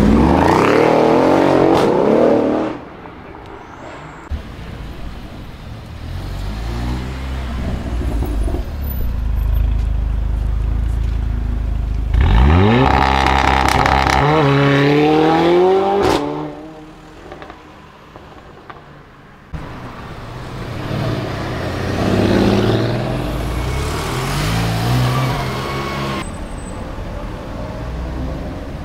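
Exhausts of several Mercedes-AMG cars in short successive clips. It opens with a loud acceleration, its engine note rising, followed by a low rumble. About halfway through, a CLA 45 AMG with an iPE exhaust revs hard in a loud rising run that cuts off suddenly, and a C63 AMG Black Series revs and pulls away more quietly in the last third.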